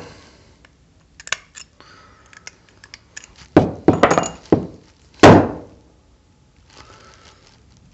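Sharp metallic knocks and clinks of a small-engine carburetor body and a metal pick being handled and tapped while a stuck emulsion tube is worked at. There are a few scattered clicks, then a cluster of knocks in the middle, the loudest a little past the middle.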